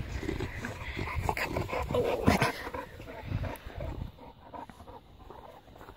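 Bullmastiffs playing close to the microphone: dog panting and short vocal sounds mixed with irregular knocks and handling rumble, loudest about two seconds in and quieter over the last two seconds.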